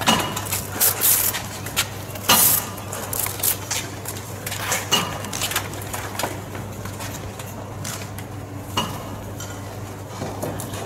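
Irregular clinks, knocks and scuffling from people handling and struggling, thickest in the first few seconds and thinning out after, over a low steady hum.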